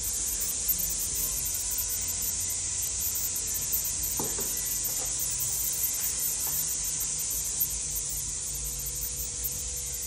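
Steady high hiss with a low hum underneath, and a few faint clicks and knocks spread through it.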